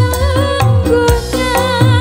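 Woman singing with wavering, ornamented phrases over a live band, with a steady low drum beat underneath.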